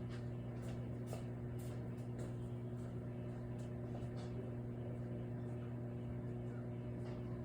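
Microwave oven running, a steady electrical hum with a few faint ticks scattered through it.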